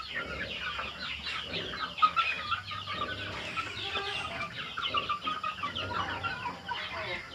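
A flock of young crossbred Aseel chickens clucking and peeping, many short high calls overlapping without a break. One brief sharp, louder sound comes about two seconds in.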